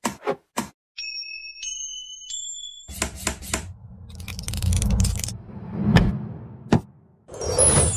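Sound effects over a Lego build: a couple of sharp plastic brick clicks, then a three-note rising chime. This is followed by a rumbling whoosh that swells to a sharp hit about six seconds in, and a shimmering swoosh near the end.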